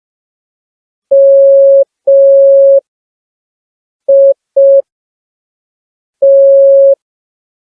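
Morse code tone from a smartphone practice app, a single steady beep keyed out slowly: dah-dah, then dit-dit, then dah, with long pauses between the letters.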